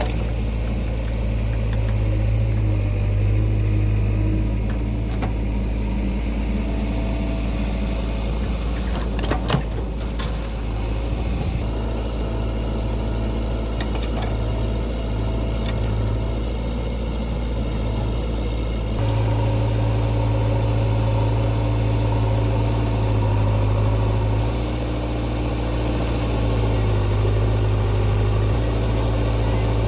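Diesel engine of a JCB 3DX backhoe loader running under working load, its steady note rising and easing as the machine works. A few sharp metallic knocks about ten seconds in.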